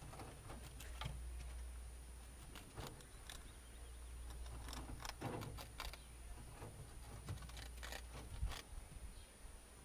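Young rabbits rustling and nibbling fresh greens and shuffling about the hutch, heard as scattered small clicks and taps with soft rustling.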